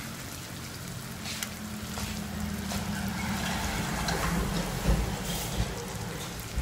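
Eggplant and oil still sizzling faintly in a hot wok just after the stove has been turned off, with scattered small pops over a low steady hum. A dull thump about five seconds in.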